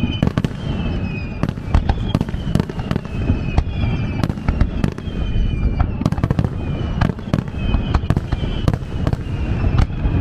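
Japanese fireworks display: shells bursting in rapid, irregular succession over a continuous low rumble, with short whistling tones that dip slightly in pitch recurring among the bangs.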